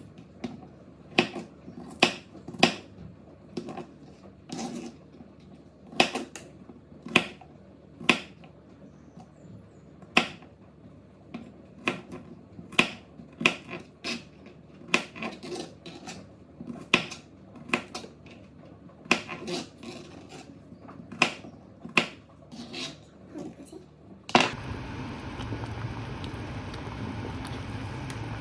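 Knife strikes on a cutting board while green onion is sliced: sharp, irregular taps, about one or two a second. About 24 seconds in they give way suddenly to a steady low rumbling noise.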